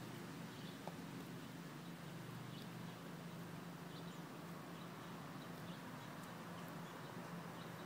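Faint outdoor background: a steady hiss and low hum, with a few faint short bird chirps.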